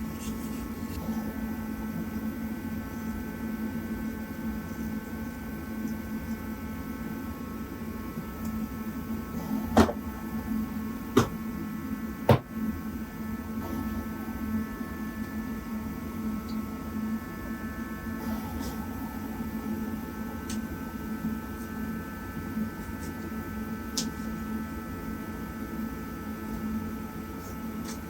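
Steady hum of a heater running, several tones held level throughout. Three sharp knocks from hand-tool work come about ten, eleven and twelve seconds in, with a few faint ticks later.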